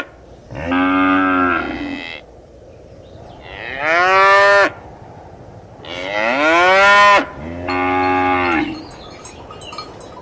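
Cattle mooing: four long moos in turn with short pauses between them, a couple of them rising in pitch. A few faint clinks follow near the end.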